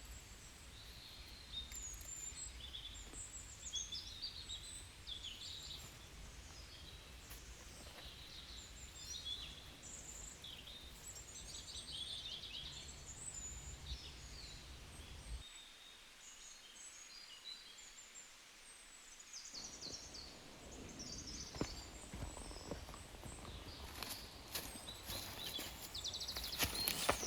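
Small birds chirping and trilling over a faint low background rumble, with a few sharp clicks near the end.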